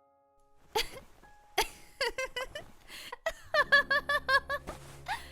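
A young woman laughing in short bursts of quick repeated "ha" sounds. Soft background music with low held notes comes in about halfway through.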